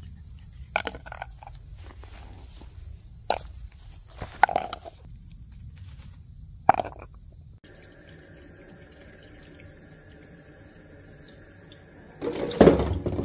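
Crickets and other insects trilling steadily, with a few sharp knocks. About 7.5 seconds in the insect sound cuts off to a quieter steady hum, and near the end a tap is turned on and water starts running into a sink.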